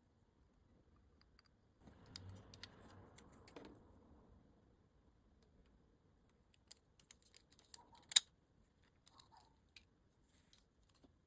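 Small parts of a 1:64 diecast model being handled on a workbench: a brief scraping rustle, then scattered light clicks and taps, the loudest a sharp click about eight seconds in.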